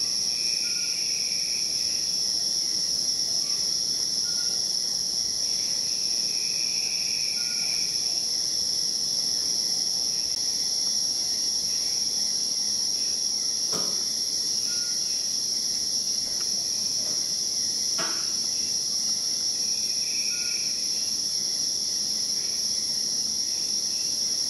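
Steady, high-pitched drone of an insect chorus (crickets or cicadas), with a few short calls repeated every several seconds and two brief knocks, one about midway and one a few seconds later.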